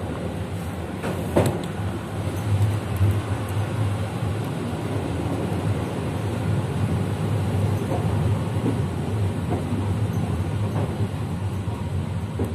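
Passenger train running, heard from its rear car: a steady low rumble of wheels on the track, with a sharp clack about a second and a half in.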